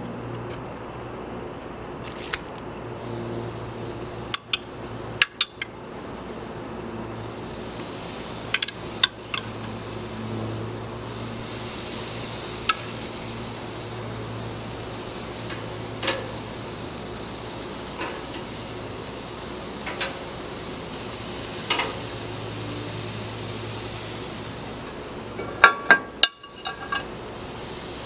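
Metal tongs clicking and clinking against gas grill grates as raw marinated chicken breasts are laid on one by one, with a sizzle that builds from about a third of the way in as the meat meets the hot grate. A quick cluster of sharp clinks comes near the end, over a steady low hum.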